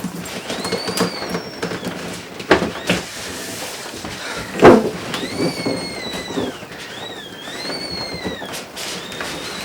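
Knocks and thumps from a large cardboard box and its packaging being handled, one about halfway through louder than the rest. Over them come several high whistles, each about a second long, rising and then falling.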